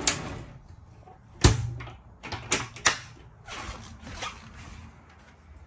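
A glass shower door and a wooden door being handled: a sharp knock about a second and a half in, then several lighter clicks and knocks of the door frames and latches.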